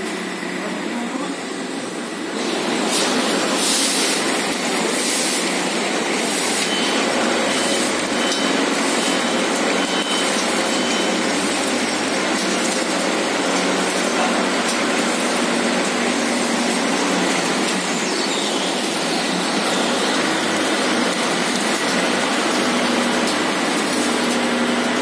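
Fertilizer bagging machine and its inclined belt conveyor running, feeding fertilizer into the hopper and down the filling spout into a sack. It comes up about two seconds in as a steady, loud rushing noise and holds.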